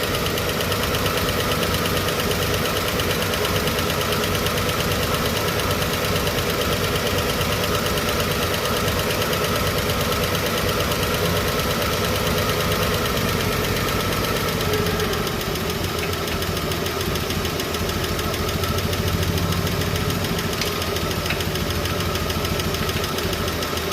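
Chevrolet 235 Blue Flame inline-six idling with fast, even ticking from the valve train while a rocker is set on a lifter that had been ticking. The idle drops slightly about 15 seconds in.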